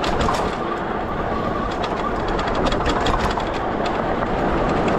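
Riding noise from an ENGWE E26 fat-tire e-bike at speed: its 26-by-4-inch tires roll over a dirt and gravel trail with wind rushing over the microphone. The noise is steady and broken by many small clicks and rattles.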